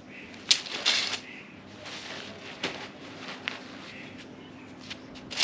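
Tent pole sections knocking and clinking against each other as they are handled, a few scattered light clicks with a small clatter about a second in.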